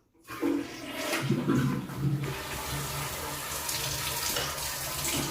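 Water tap turned on and running steadily, a sign the water supply has been restored. The flow starts abruptly just after the start.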